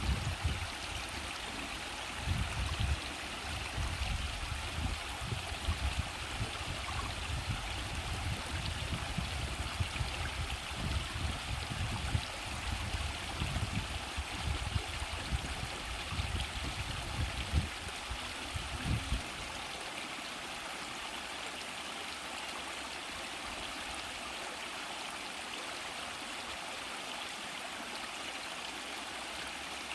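Mountain stream water rushing and gurgling steadily over rocks. A low, gusty rumble comes and goes over it for the first two-thirds, then stops.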